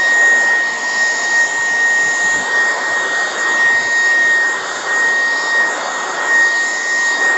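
Dreame R20 cordless stick vacuum running on its high power setting: a steady high-pitched motor whine over rushing air, rising and falling slightly in level as it is pushed over the floor.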